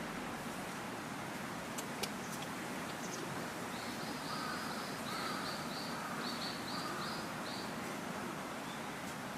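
Steady outdoor background hiss with a bird calling a run of about nine short, high, repeated notes from about four to seven and a half seconds in. A couple of faint clicks about two seconds in.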